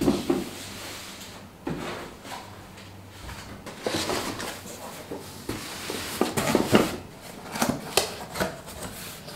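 Cardboard shipping boxes handled on a wooden table: a knock as one is set down at the start, then irregular knocks, cardboard rubbing and scraping, and fingers picking at packing tape on the box lid.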